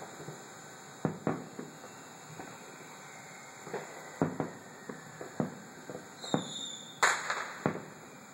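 Distant aerial fireworks shells bursting: an irregular series of sharp bangs, the loudest about seven seconds in with a brief crackle after it. A short high whistle comes just before that loudest bang.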